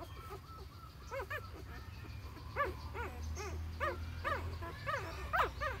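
Young puppies in a litter whimpering: about a dozen short, high squeaks, each rising and falling in pitch, coming thick and fast from about a second in.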